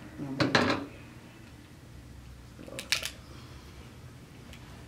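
King crab leg shell clicking and cracking as it is cut and pulled apart by hand: a loud burst just after the start, and a sharper cluster of clicks about three seconds in.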